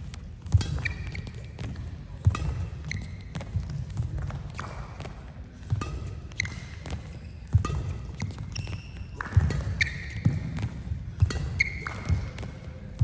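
Badminton footwork on a synthetic court mat: shoes squeak in short chirps and feet land with irregular thuds as the player lunges and shuffles.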